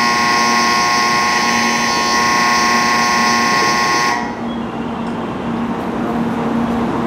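Shinkansen platform departure buzzer sounding steadily beside a stopped 700 Series Rail Star train, the signal that the doors are about to close; it cuts off suddenly about four seconds in, leaving a steady low hum underneath.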